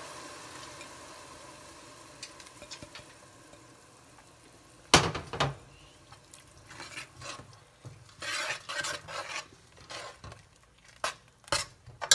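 Soaked lentils sizzling in hot oil-and-spice tempering in a steel pot, the sizzle dying away over the first few seconds. A loud metallic clank comes about five seconds in, then a metal ladle stirring and scraping against the pot, with a few sharp clinks near the end.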